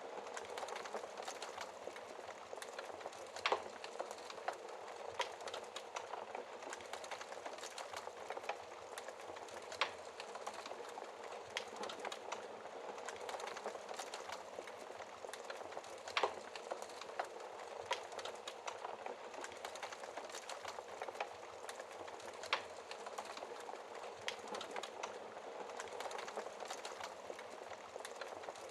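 Wood fire crackling in a fireplace: a steady hiss full of small crackles, with a sharper pop every six seconds or so.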